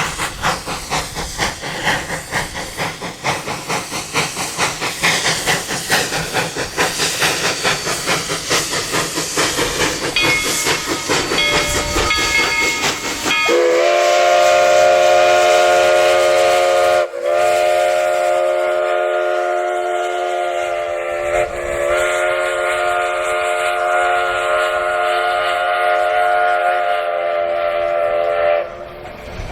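Narrow-gauge 2-8-0 steam locomotive, Denver and Rio Grande Western No. 315, working hard with rapid, even exhaust chuffs, then blowing its steam whistle in three long blasts separated by short breaks, the last one the longest.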